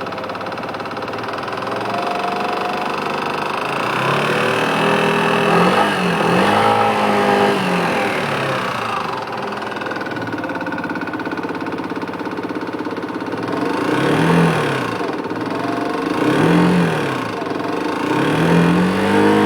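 Yamaha X-Max scooter engine idling and blipped about five times, each rev rising and falling back to idle. Under it runs the small rattle ('cliquetis') that the owner is trying to get diagnosed.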